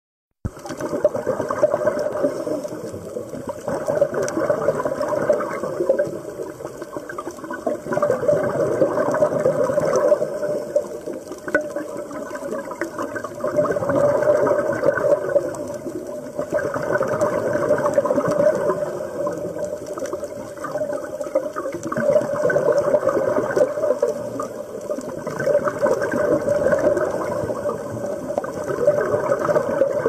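Underwater water noise, bubbling and rushing, swelling and easing in waves every few seconds.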